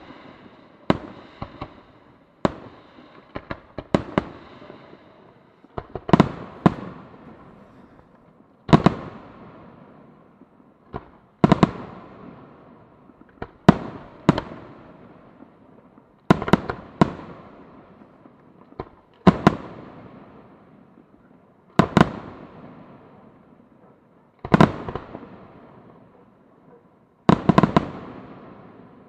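Aerial firework shells bursting in a professional display: a few smaller, quicker bangs at first, then a heavy boom about every two and a half to three seconds, some in quick pairs, each trailing off in a long echo.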